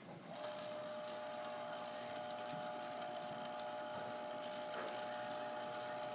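Small motor and gearing of an Erector-set model sawmill switched on, starting about a third of a second in and then running steadily at slow speed, a constant hum of a few steady pitched tones over a mechanical whir.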